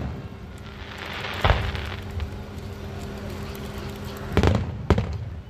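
Aerial fireworks shells bursting: one sharp bang about a second and a half in, then a quick cluster of bangs near the end, over a steady low hum.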